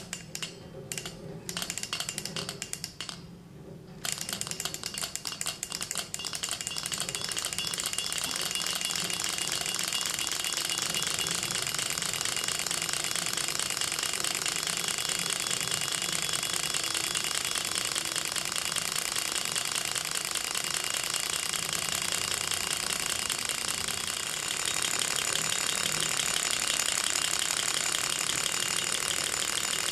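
Gatling six-cylinder Stirling model engine flicked over by hand: a few short bursts of rapid clicking. About four seconds in it catches and keeps running on its own, a fast, steady metallic clatter that grows louder near the end. It is running again after its clogged hot end was cleaned and reassembled.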